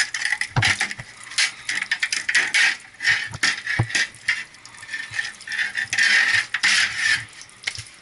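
Perforated metal strainer basket from a chiller's condenser-water strainer being handled and cleaned: irregular rattling and scraping with uneven rushes of noise and a few knocks.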